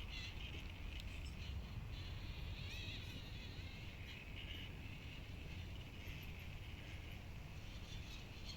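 Outdoor ambience: a steady high-pitched chirring over a low rumble.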